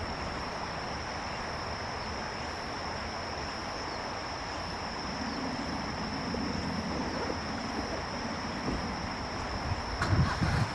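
Insects chirring in one unbroken high tone over a steady background hiss, with a few low rumbles of wind on the microphone near the end.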